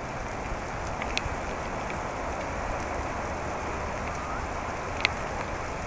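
Steady rain falling, an even hiss with a few sharp ticks of single drops.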